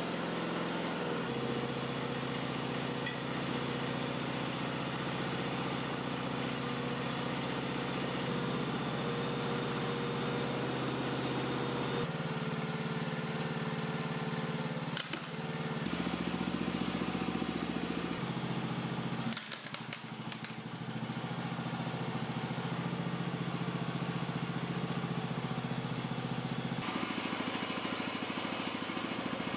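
Small air-cooled engine running steadily while driving a hydraulic pump through an air-conditioning compressor's clutch pulley. Its note steps in pitch and loudness several times as the hydraulic valve is worked and the load changes, getting louder about sixteen seconds in, with a short dip and a few clicks about twenty seconds in.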